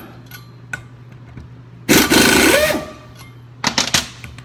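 Pneumatic impact wrench running in one short burst, its motor pitch rising then falling, as it spins out a wheel hub assembly's retaining bolts. A few quick sharp clicks follow near the end.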